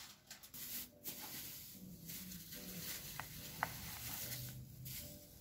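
Quiet handling sounds of a knife and hands working at a biscuit-covered chocolate dessert on a clear plastic plate, with two light clicks a little past halfway.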